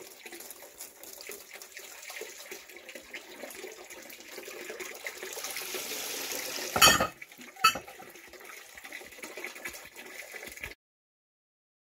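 Spring water pouring from a metal spout into a metal-lined wooden trough, splashing steadily, with two sharp knocks about seven seconds in, under a second apart. The sound cuts off suddenly near the end.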